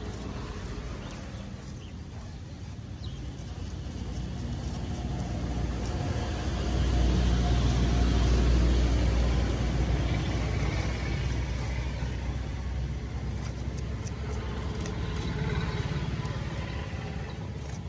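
Low engine rumble of road traffic, swelling to its loudest about seven to ten seconds in as a vehicle passes, then easing and rising a little again near the end.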